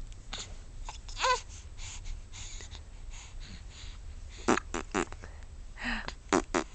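A baby hiccuping and cooing: one short coo about a second in, then a cluster of quick, sudden breathy catches in the second half.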